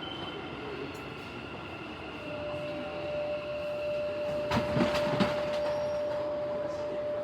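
Electric commuter train running, with steady electric motor whine tones over the rumble and a brief louder rush of noise about halfway through.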